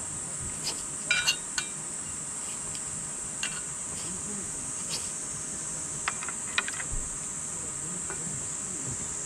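A steady, high-pitched drone of summer insects, with several light clinks of tableware or cooking utensils; two of the clinks come close together about a second in.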